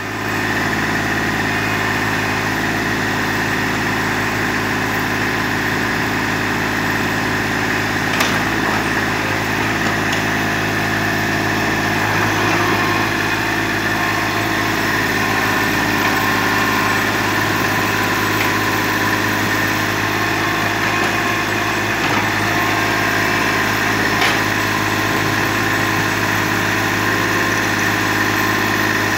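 Small crawler excavator's diesel engine running steadily as the machine digs soil, with a couple of faint knocks.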